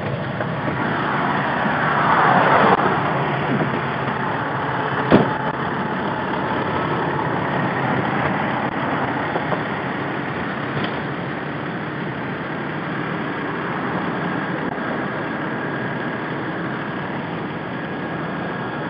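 Steady running of an idling fire-engine motor, with a swell of hissing noise in the first few seconds. A single sharp pop comes about five seconds in, and a fainter one near the middle.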